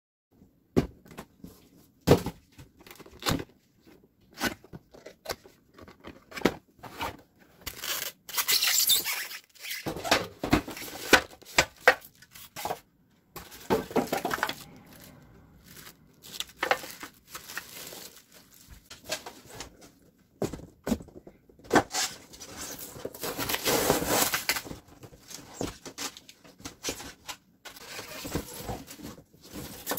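Plastic wrap and packaging rustling and crinkling as a mini electric grill is unwrapped, with scattered knocks and clicks from handling it. There are two longer stretches of rustling, one about eight seconds in and a longer one past the twenty-second mark.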